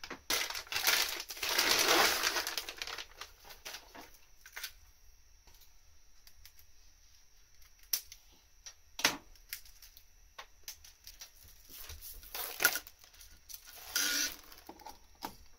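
Plastic packaging crinkling and rustling as parts and a mains cable are unwrapped, in a burst lasting about two seconds near the start and again near the end, with a few sharp clicks and knocks between.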